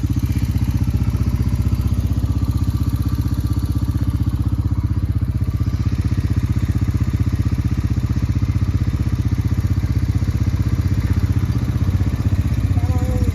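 Vehicle engine idling steadily close by, a loud, even low rumble.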